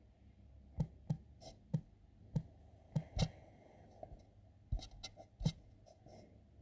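Handling noise: about a dozen light, irregular clicks and taps, with the two sharpest a little past the middle and near the end.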